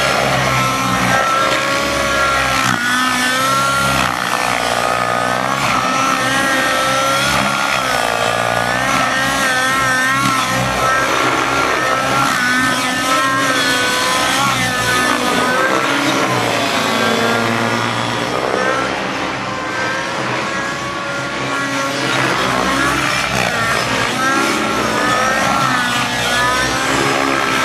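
Raptor 90 nitro RC helicopter flying 3D aerobatics, its engine and rotor note wavering up and down in pitch with each manoeuvre.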